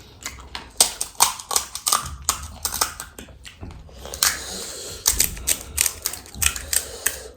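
Close-miked crunching of crisp fried puri shells being bitten and chewed while eating panipuri: a quick, irregular series of sharp crackles.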